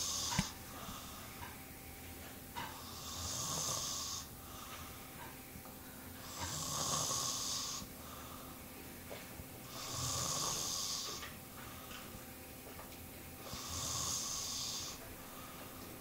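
Someone asleep and snoring in a slow, even rhythm: one hissy snore about every three and a half seconds.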